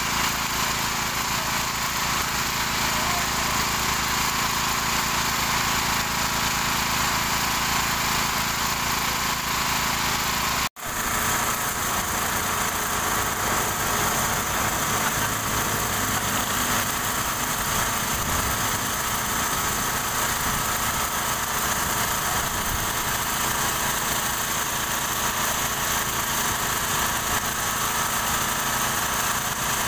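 Engines running steadily at idle, with an even low throb. The sound cuts out for an instant about eleven seconds in.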